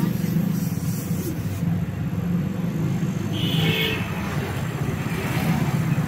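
Refrigerator compressor running under test: a steady low mains hum. A short high tone sounds about three and a half seconds in.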